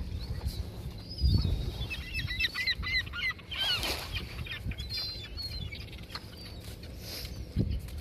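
A flock of waterbirds calling: bursts of short, quick, repeated calls, busiest in the middle. There are low rumbles about a second in and near the end.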